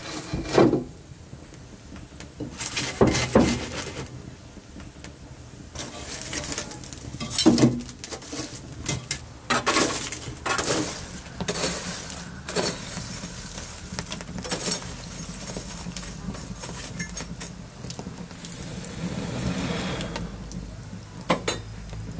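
Hot wood embers clinking and clattering as they are raked with a stick into a stone-sided grill trough, in a series of irregular bursts with sharp clicks between them.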